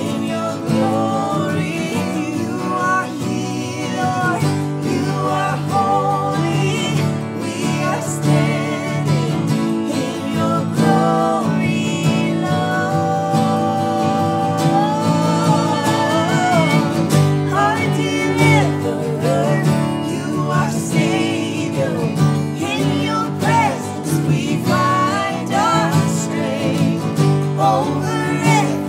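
Worship song: a singing voice over guitar and sustained accompaniment.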